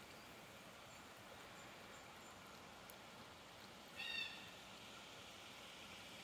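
Near silence with a faint steady hiss; about four seconds in, a single short, high-pitched animal call.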